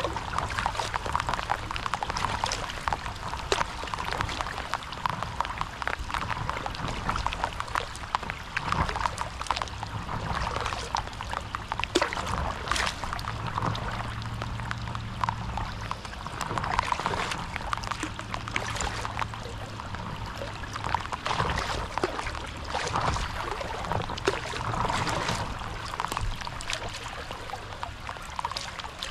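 Water splashing and trickling from a stand-up paddleboard paddle working through lake water, with a swell of splashing every few seconds over a steady patter of small ticks.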